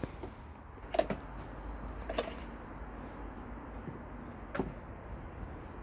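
Three brief knocks or taps, about a second, two seconds and four and a half seconds in, over a steady low outdoor rumble.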